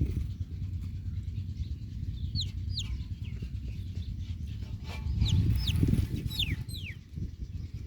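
Baby chicks cheeping: a few short, high peeps that fall in pitch, coming in pairs, over a steady low rumble that swells briefly about five seconds in.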